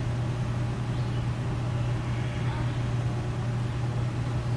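Steady low motor hum with a constant deep drone.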